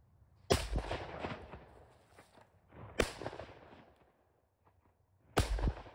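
Three shotgun blasts about two and a half seconds apart, each trailing off in a short echo.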